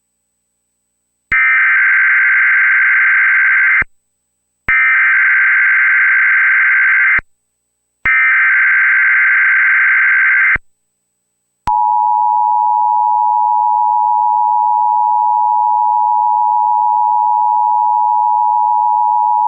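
Emergency Alert System tones: three identical raspy digital data bursts, each about two and a half seconds long with short gaps, carrying the SAME header that encodes the alert. About twelve seconds in, the steady two-tone attention signal begins, a harsh chord of two close pitches just under 1 kHz that holds to the end. Together they announce that a severe thunderstorm warning is about to be read.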